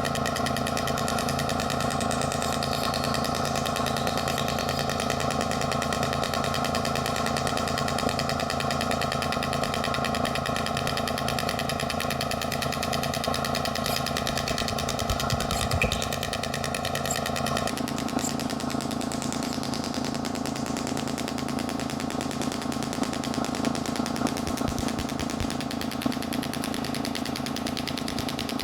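Radial shockwave therapy handpiece firing a rapid, steady train of pulses into the patient's lower back, a buzzing, jackhammer-like rattle. About two-thirds of the way through its tone changes, the higher part dropping away and a lower hum coming forward.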